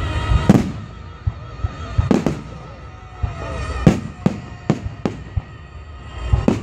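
Aerial firework shells bursting in a string of about seven sharp bangs, uneven and roughly a second apart, the first and loudest about half a second in. A steady tune sounds underneath, music playing along with the display.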